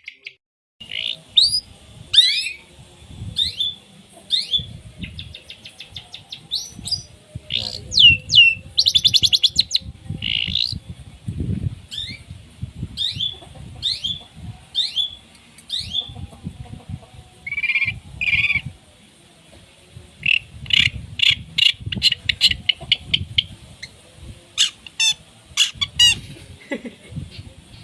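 Long-tailed shrike (cendet) singing nonstop: a rapid, varied run of sharp downslurred notes and fast trills, typical of its song packed with mimicked calls of other birds, over a low rumble.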